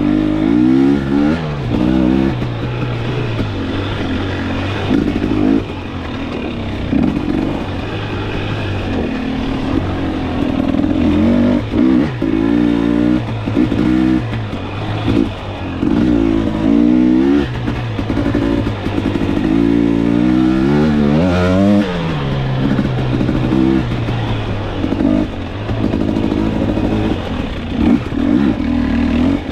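2022 KTM 250XC TPI single-cylinder two-stroke dirt bike engine with a TSP performance kit, revving up and down over and over as it is ridden along a trail, with occasional clatter.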